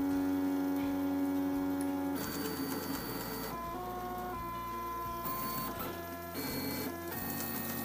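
Stepper motors of a Mendel90 RepRap 3D printer singing as the axes move during a print. A steady whine holds one pitch for about two seconds, then jumps from pitch to pitch with each new move.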